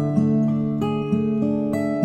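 Background music: an instrumental piece of plucked notes, a new note or chord sounding every half second or so.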